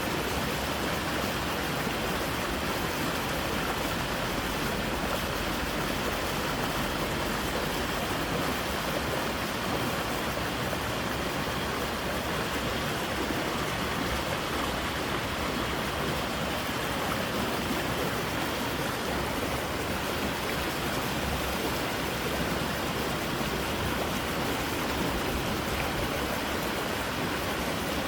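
Water rushing steadily through a creek, an even, unbroken noise.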